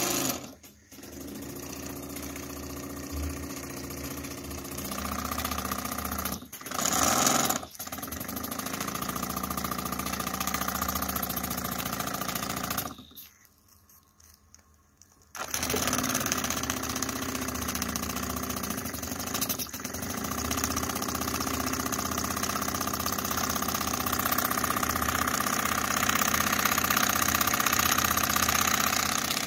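Miniature model steam engines running with a steady hiss and clatter, broken by a few abrupt cuts and a near-silent gap of about two seconds in the middle. After the gap, a David A Auld model steam crane's engine runs steadily.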